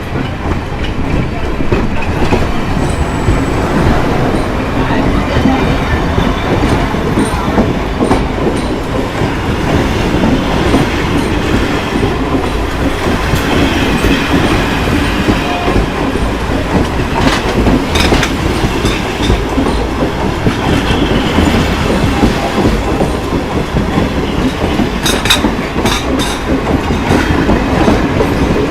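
Train rolling along the track, a steady loud rumble of wheels on rails with clickety-clack from the rail joints, and a few sharper clacks about two-thirds of the way through and again near the end.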